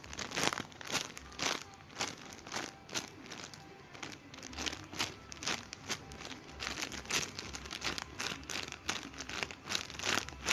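Plastic packaging crinkling as a squishy toy in its bag is handled, with irregular crackles throughout.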